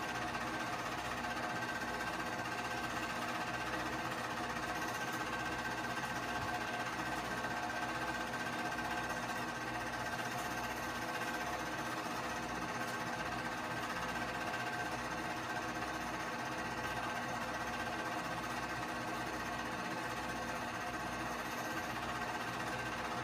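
Keystone K-502 8mm movie projector running: a steady motor and fan hum with the fast, even mechanical clatter of the film transport.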